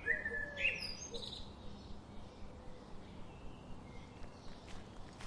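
Birds chirping with short, quick notes in the first second and a half, then a faint outdoor background with a few light ticks near the end.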